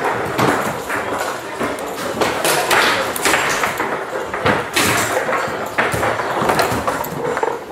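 Tecball foosball table in play: a rapid, irregular run of sharp knocks and clacks as the ball is struck by the plastic players and the steel rods bang against their stops, over faint background chatter.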